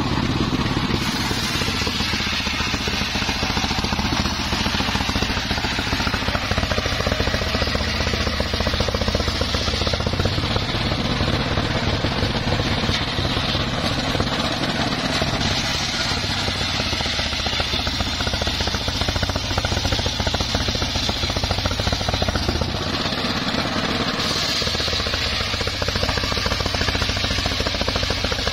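Engine-driven homemade circular sawmill running steadily while a log of mahogany is fed along its table toward the blade.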